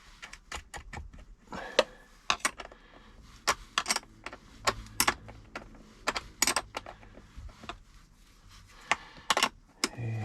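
Spanner clinking on a battery terminal bolt as a loose nut is tightened: a string of irregular sharp metallic clicks.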